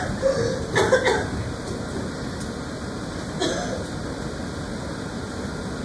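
A few brief human vocal sounds in the first second and again about three and a half seconds in, over steady background noise.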